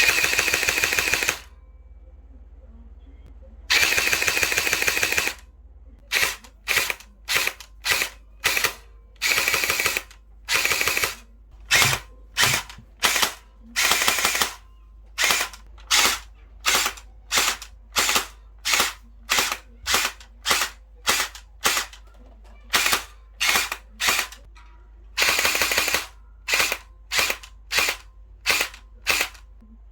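Airsoft K1A replica rifle firing on full auto: two long bursts of about a second and a half, then a string of short bursts about once a second, with longer bursts again near the end.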